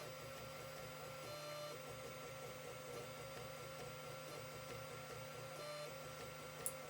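Creality CR-10 3D printer printing: a steady motor whine over a low hum, shifting pitch briefly twice as the moves change. A single short click near the end.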